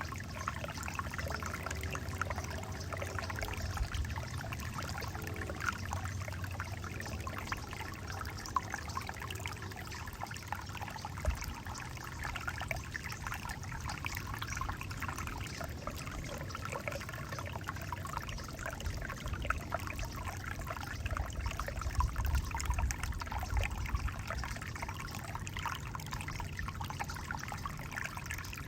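Alpine Creek, a small stream, trickling and splashing over rocks in a continuous, even babble, with a steady low rumble underneath.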